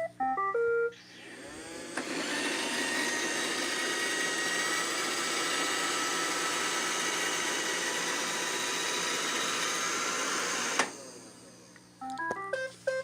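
An iRobot Roomba 694 robot vacuum plays a short beeping tune when sent home. Its vacuum motor and brushes then spin up and run steadily while it drives back to its charging dock. The motor cuts off suddenly about eleven seconds in as it docks, and a short happy tune of stepped tones follows near the end.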